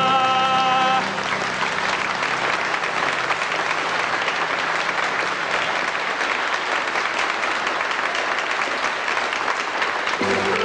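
Audience applauding, an even wash of clapping. A singer's held final note ends about a second in, and a band starts playing near the end.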